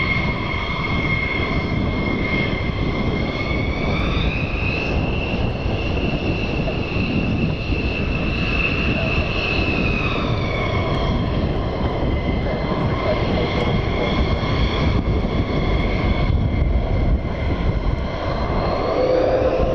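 F-15E Strike Eagle's twin turbofan jet engines running at taxi power: a steady jet rumble under a high whine. The whine rises in pitch about four seconds in and drops back about ten seconds in.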